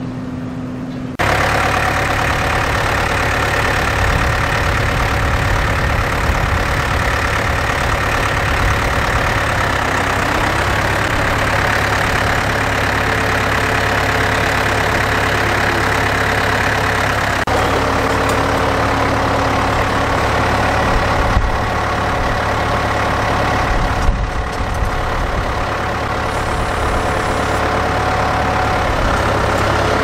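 Case International tractor's diesel engine running steadily close by while pulling a mounted plough. It is fainter for the first second, then suddenly louder.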